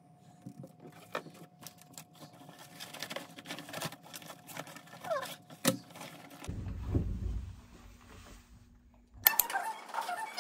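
Scattered small clicks and handling noises in a small room, then a low rumble for a few seconds; background music starts suddenly near the end.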